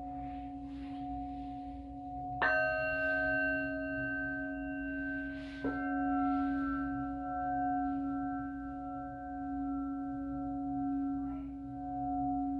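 Singing bowls ringing with long, overlapping sustained tones. A bowl is struck about two and a half seconds in and another about three seconds later, each adding a brighter tone over the low hum. The sound swells and fades in slow waves.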